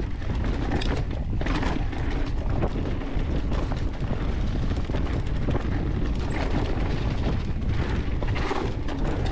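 Mountain bike rolling fast over a dirt trail covered in dry leaves: a steady low rumble of tyres and wind buffeting the microphone, with frequent clicks and rattles from the bike and the leaves.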